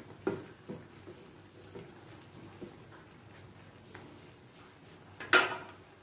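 A wooden spatula stirring fish and vegetables in an aluminium wok, with soft scrapes and a few light knocks against the pan over the first few seconds. A single sharp knock comes about five seconds in, the loudest sound here.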